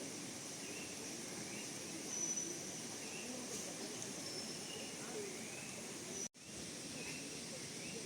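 Outdoor ambience of short high-pitched chirps and whistles over a low murmur of distant voices, broken by a sudden split-second dropout about six seconds in.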